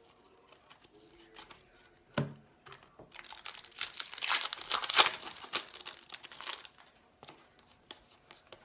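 Wrapper of a 2017 Topps Update baseball card pack being torn open and crinkled, loudest for about three seconds starting around three seconds in. Fainter clicks and rustles of the cards being handled follow near the end.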